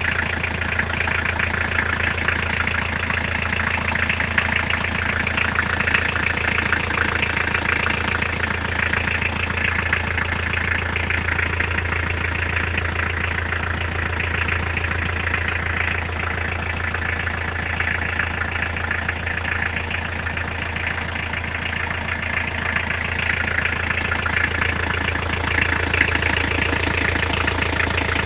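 Car engine idling steadily with a fast, even knocking running through it, a knock whose cause the owner cannot place.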